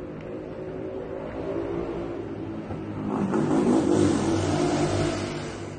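A motor vehicle's engine running nearby and passing close, growing louder to a peak about four seconds in, then fading.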